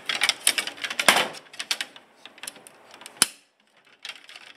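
Clear plastic blade guard assembly of a RYOBI RTS08 table saw being handled, with a quick run of plastic clicks and rattles for about two seconds. A single sharp click comes a little after three seconds, as the blade guards are raised and click into their locked up position.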